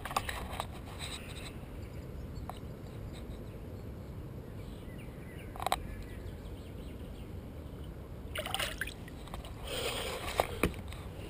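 Water sloshing and splashing as a tench is held in lake water by hand and released, with a few short splashes, a sharp one about halfway and more near the end, over a steady low rumble.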